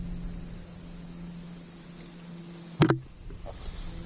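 Late-summer insects trilling steadily in a high, continuous buzz, over a low steady hum. A single sharp knock sounds about three seconds in.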